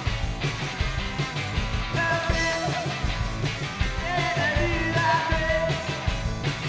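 Rock band playing live: electric guitar, electric bass and drum kit, with a male lead voice coming in singing about two seconds in.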